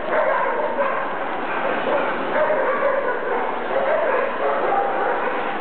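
Many dogs barking and yipping at once in a dog show hall, a dense, unbroken din of overlapping calls.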